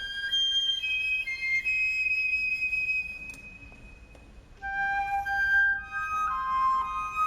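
Flute playing a slow classical melody of held notes in two phrases. The first phrase fades out around three seconds in, and a second, lower phrase begins about four and a half seconds in.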